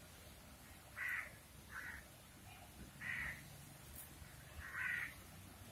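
A bird calling four times, short separate calls a second or two apart.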